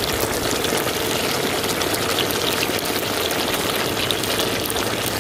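Soybean chunks in a thick dark chili, soy and tomato sauce sizzling and bubbling in a hot wok: a steady crackling hiss.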